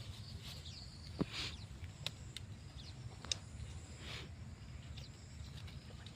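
Quiet open-air background with a low steady rumble, a handful of faint sharp clicks and two short rustling scrapes.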